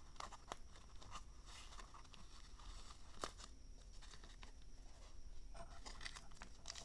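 Faint handling noises from a small plastic packaging case: scattered light clicks and scrapes as the foam insert is pulled out, then a small plastic zip bag crinkling as it is handled near the end.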